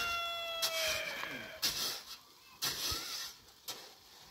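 The end of a rooster's crow, one long held call that stops about a second in, followed by several short scraping rushes, about one a second, of a shovel working loose cement powder in a pickup's bed.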